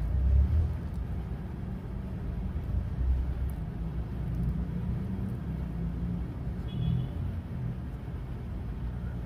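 A steady low rumble in the background.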